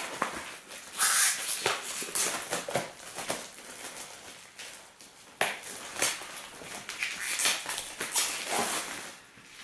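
Plastic shrink-wrap being torn and peeled off a book-style CD package, crinkling and crackling irregularly.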